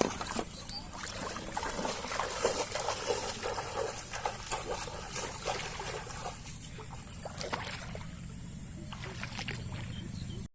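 Water splashing and dribbling irregularly, with scattered small knocks, over a steady high hiss; it gets quieter after about six seconds.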